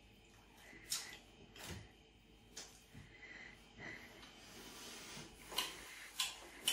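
Faint chewing and breathing through the nose of a man eating very sticky, syrup-coated toast, with soft mouth smacks and clicks about once a second.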